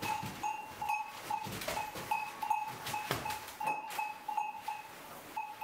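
Cattle feeding in a barn: a small neck bell clinks irregularly many times as an animal moves its head, over rustling and occasional knocks.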